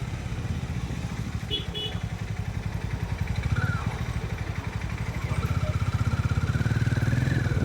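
Harley-Davidson X440's single-cylinder engine running steadily under way, with road noise, growing louder after about five seconds as the bike picks up speed.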